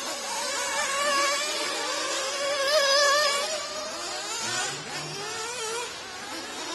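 Small nitro glow-fuel two-stroke engines of 1/8-scale off-road racing buggies buzzing at high revs. Their pitch rises and falls as the throttle is worked, and the sound is loudest about three seconds in.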